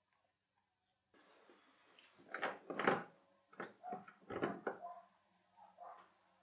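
Irregular metal knocks and rattles of a ratchet and socket being handled and fitted onto the new oil pressure sensor in a truck's engine bay. The loudest clatter comes about two and a half to three seconds in and again around four and a half seconds, with lighter clicks near the end.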